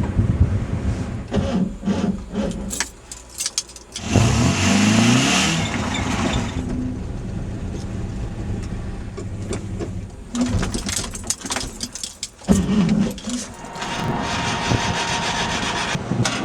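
Skoda 105's starter cranking the engine in repeated attempts. The engine will not keep running. About four seconds in the sound rises in pitch, as if the engine briefly catches.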